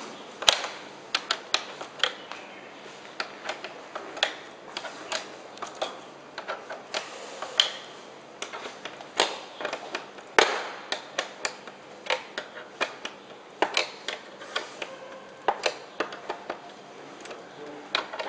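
Irregular clicks and knocks of hands working the locks and cable connectors on the back of an LED display rental cabinet, with a few sharper snaps standing out.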